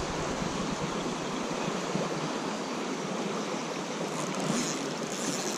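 Fast river current rushing steadily past the bank, an even wash of moving water.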